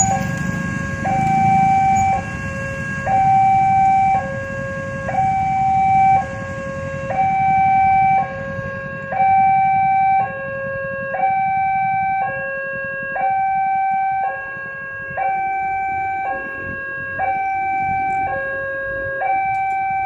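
Railway level-crossing warning alarm sounding a steady alternating two-tone, a higher and a lower note of about a second each. Idling motorcycle engines rumble underneath for the first several seconds and then fade.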